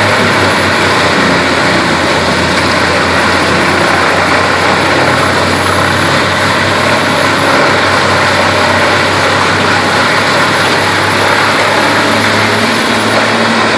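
Bandit whole-tree chipper running steadily under load, its engine and cutting drum chewing up a tree as chips blow out of the discharge chute. It is a loud, unbroken mechanical din.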